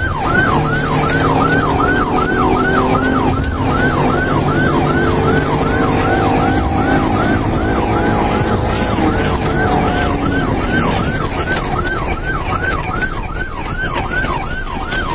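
Police car siren in the fast yelp mode, about three rising-and-falling sweeps a second, steady throughout, over the patrol car's engine and road noise.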